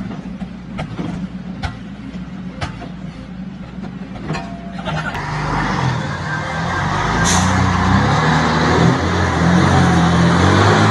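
A few sharp knocks over a low engine hum. Then, about five seconds in, a coach bus's engine takes over, running louder and wavering in pitch as the bus works along a rough dirt road. A brief hiss comes about seven seconds in.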